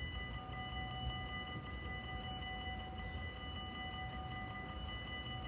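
Steady high ringing at several fixed pitches with a fast, even pulse, over a low rumble.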